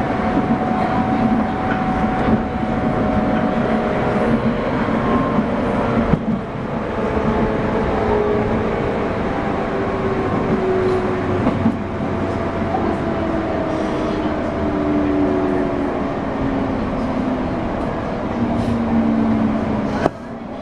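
Running noise inside a JR West 201 series electric train's motor car (MoHa 200), with no chopper sound: traction motor and gear whine over wheels on the rails. The whine falls steadily in pitch as the train slows.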